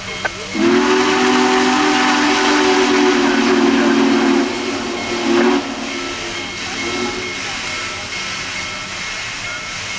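Union Pacific Big Boy #4014's steam chime whistle sounds one long, loud blast of about four seconds, then a short second blast, over a steady hiss of steam.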